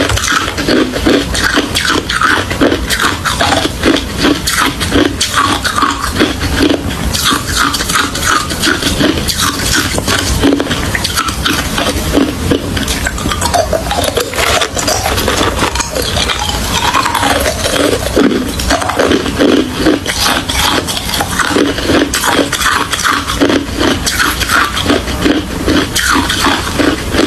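Close-miked chewing of hard crushed ice: a continuous run of loud, crisp crunches, several a second, as the ice is bitten and ground between the teeth.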